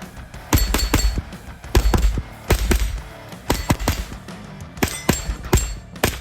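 JP-15 .22 LR rifle fired in quick strings of two or three shots, about a dozen or more in all, with steel targets ringing as they are hit.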